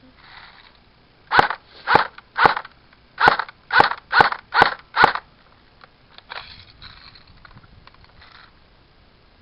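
Airsoft rifle firing eight single shots in quick succession, roughly two a second, followed by a few faint clicks and handling noise.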